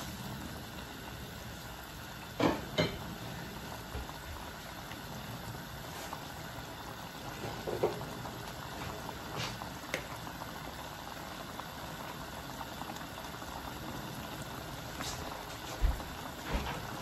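A soupy tomato-and-onion stew boiling in a wok on a gas burner, a steady bubbling hiss. Two sharp knocks about two and a half seconds in, and a couple of dull thumps near the end.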